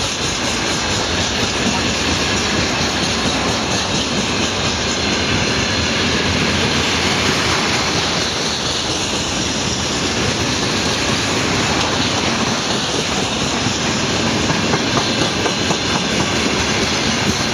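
Freight train of rail tank cars rolling past close by: a steady, loud rumble of steel wheels on the rails, with a repeated clatter as the wheels pass over the rail joints.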